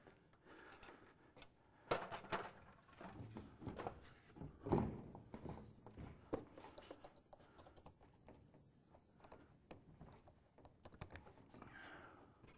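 Faint, scattered knocks and thunks, the loudest about five seconds in, with some rubbing and rustling near the end: a person climbing a stepladder and handling the heater wire plugs on the wooden roof of a sauna cabin.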